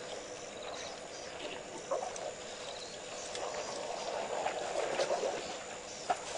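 African savanna elephants drinking at a waterhole: water sloshing and dripping as trunks lift it to their mouths, with a few soft knocks. Small birds chirp in short high trills, one about halfway through.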